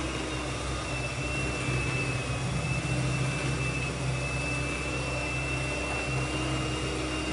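Handheld electric mixer running steadily with a high motor whine, its beaters churning cookie dough in a bowl.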